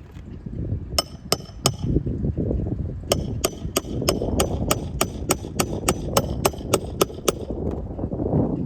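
Hammer driving 1¼-inch roofing nails through an asphalt shingle: three sharp strikes about a second in, then a fast even run of about four blows a second. A steady low rumble runs underneath.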